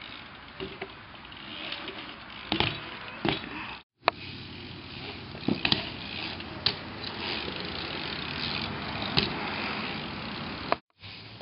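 BMX bike being ridden, a steady rolling and mechanical rattle broken by several sharp knocks and clanks. The sound cuts out abruptly twice.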